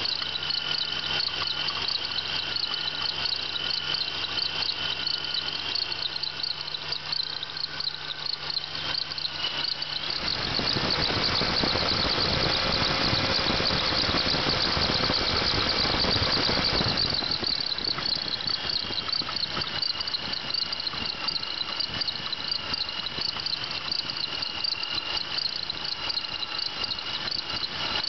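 1996 Pontiac Bonneville SSEi's supercharged 3800 V6 idling, with a steady high squeal and chirp from a bad idler pulley on the accessory belt. About a third of the way in, a louder, rougher rushing sound covers it for some seven seconds before the idle and squeal return.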